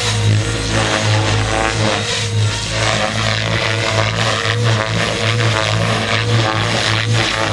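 Radio-controlled helicopter in flight: the steady whine and buzz of its rotors and motor, rising and falling slightly in level.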